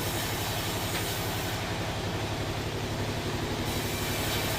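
Sawmill machinery running steadily, with a fast, even low throb under a broad mechanical noise.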